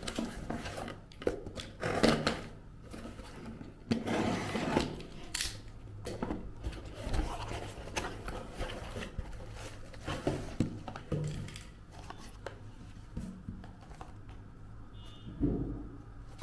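A cardboard parcel being opened and unpacked by hand: irregular rustling, scraping and tearing of cardboard and plastic packaging, with scattered knocks and clicks.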